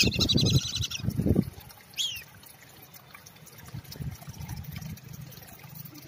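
A flock of whistling ducks calling in fast, high twittering whistles that stop about a second in, with one more short call about two seconds in. Water from a garden hose splashes and trickles into their pool, louder for the first second and a half and faint after.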